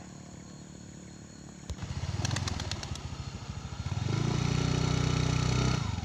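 Motor scooter engine cutting in sharply about two seconds in and running with a quick pulse, then revving to a louder, steady note for about two seconds before easing off near the end. A few light clicks sound just after it comes in.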